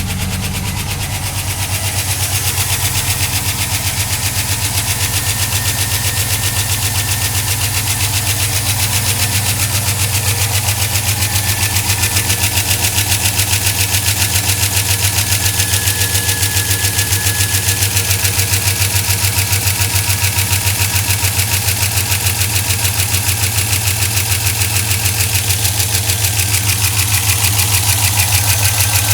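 2004 Chevrolet Silverado's 5.3 L V8 idling just after a cold start, with a loud, rapid, steady ticking over the engine note.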